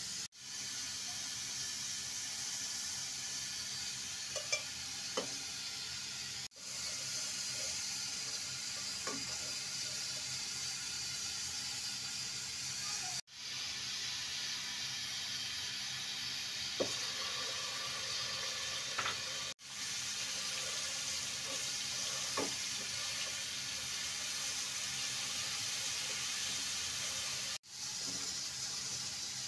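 Hot cooking oil sizzling in a pan as cumin seeds and chopped onion fry, with a spatula stirring now and then. A steady hiss that cuts out briefly a few times.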